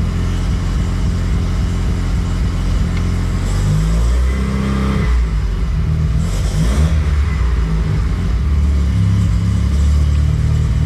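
Mazda RX-7 FD's twin-rotor 13B rotary engine idling at about 1,100 to 1,250 rpm while still warming up, its pitch dipping and coming back up briefly about four seconds in and again around six to seven seconds in.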